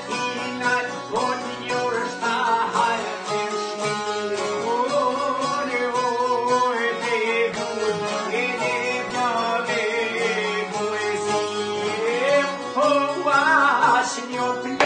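A man singing a slow, ornamented Albanian folk song in long held, wavering lines, accompanied by strummed long-necked Albanian folk lutes and an accordion.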